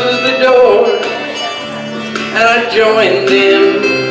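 Gospel vocal group singing together through microphones, several voices with instrumental accompaniment, softening briefly on a held note partway through.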